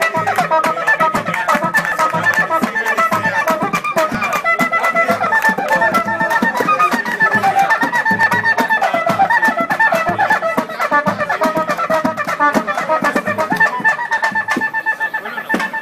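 Brazilian samba percussion: hand drums and a struck metal bucket play a fast, even rhythm under a sustained melody line.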